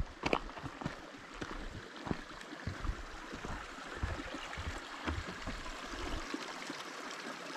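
Footsteps on a trail and wooden boardwalk, irregular low knocks that stop about six seconds in, over a steady rush like a flowing stream.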